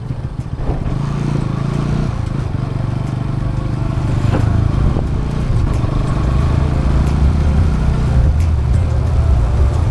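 Bajaj Pulsar NS200's single-cylinder engine running as the motorcycle rides along, its pitch shifting a couple of times.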